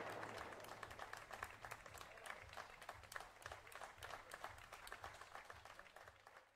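Faint, scattered applause and clapping from a small crowd after a firework show, with the echo of the final firework bang dying away at the start; it fades out near the end.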